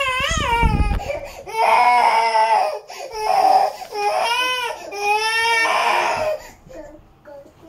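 A toddler crying hard in a run of long wails that bend up and down in pitch, a frustrated cry at being kept in when she wants to go out; it dies down near the end.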